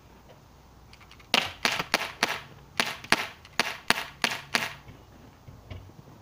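Pellet gun firing a rapid string of about a dozen sharp cracks over some three seconds, about three shots a second, at a bag of dog fur that is knocked over.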